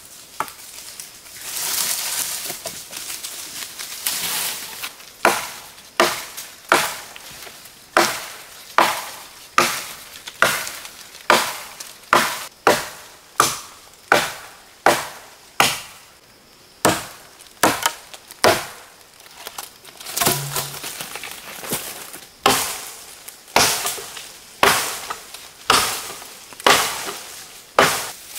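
Rhythmic chopping with a blade, a sharp crisp stroke roughly every 0.7 seconds, starting a few seconds in after a stretch of rustling.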